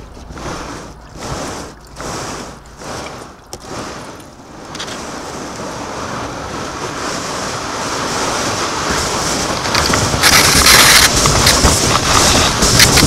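Kayak hull sliding down a snow- and ice-covered street: short scrapes about every two-thirds of a second at first, then a continuous rushing scrape of the hull on snow and ice that grows steadily louder as the kayak picks up speed, with wind buffeting the microphone loudest near the end.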